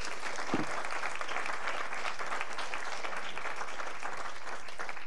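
Audience applauding: many hands clapping steadily, with one brief low bump about half a second in.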